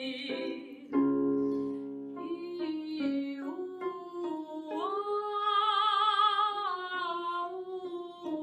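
A woman singing a vocalise over piano accompaniment. A piano chord is struck about a second in, then her sung line moves from note to note and swells to its loudest, with vibrato, around the middle before easing off again: the crescendo and diminuendo of a messa di voce exercise.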